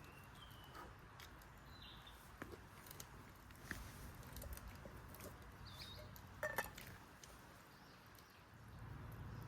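Quiet outdoor ambience with a few short bird chirps and scattered light clicks, the loudest a brief cluster of clicks with a chirp about six and a half seconds in.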